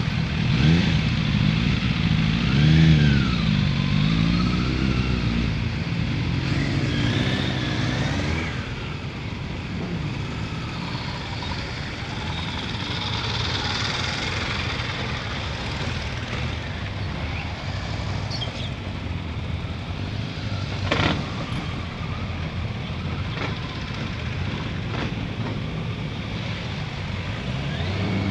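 Several motorcycles riding slowly past at low revs, their engine notes rising and falling as riders blip the throttle, with other bikes running in the background. One sharp click about three quarters of the way through.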